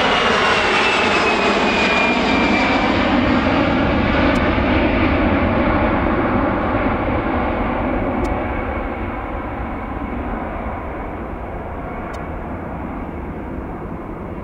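Airbus A320-200 airliner's jet engines at takeoff power as it climbs away: loud jet noise with a high fan whine falling in pitch over the first few seconds, then fading steadily as the aircraft recedes.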